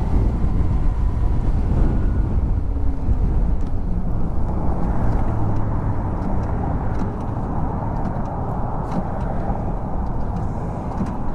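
Kawasaki Ninja motorcycle being ridden along a road, picked up by a camera on the bike: a steady rush of wind and road noise with the engine running underneath.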